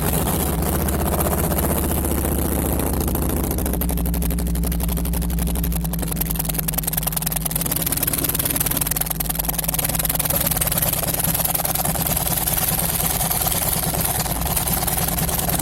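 Harley-Davidson 103 cubic-inch V-twin engine idling steadily just after being started, with a slight change in its note a few seconds in.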